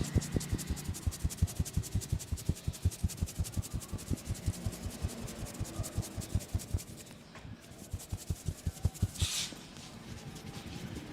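Barber's hands massaging a head: fast, even patting and rubbing on the scalp, a run of dull thuds about six a second that thins out and stops about two-thirds of the way through. A few scattered pats and a short scratchy rush follow near the end.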